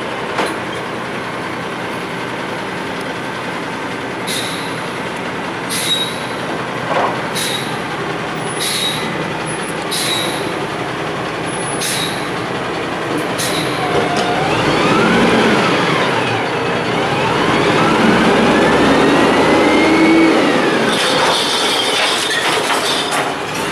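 Front-load garbage truck (Amrep Octo body on a White Xpeditor chassis) running, with a series of short sharp clanks as it pulls up and its forks engage a dumpster. It then revs up with a whine that rises and falls in pitch as the hydraulic arms lift the dumpster over the cab.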